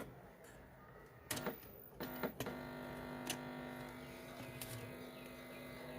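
A few clicks and pops as the RCA audio lead is plugged into the set-top box's audio socket, then a steady hum from the connected speaker.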